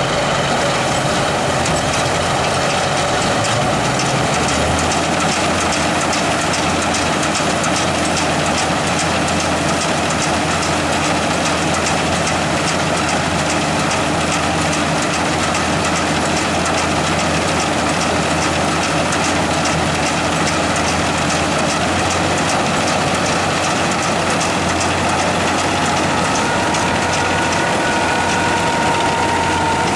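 Braud 2065 combine harvester working through barley: its engine running steadily under the clatter of the cutting and threshing mechanism, with a fast, regular clicking.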